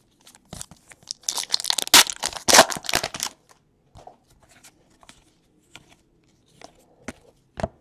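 Foil baseball-card pack wrapper crinkling and tearing as it is opened, in a dense rustle from about one to three seconds in. Scattered light clicks and slides follow as the cards are handled.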